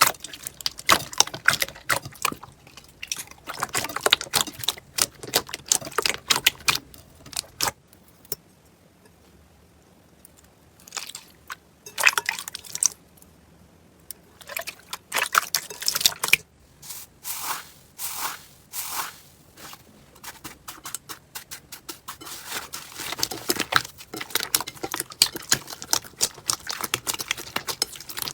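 Slime being squeezed and poked, making rapid sticky crackles and pops, with a quieter pause about eight to eleven seconds in.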